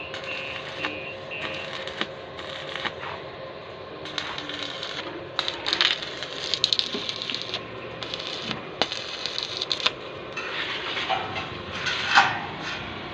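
Irregular clicks, knocks and light clinks, with a flurry about six seconds in and one sharper knock near the end.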